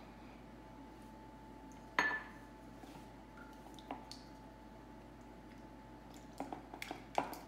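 A small ceramic dish set down on a stone countertop with a single clink about two seconds in, then a run of light clicks and taps of a utensil stirring in a plastic mixing bowl near the end.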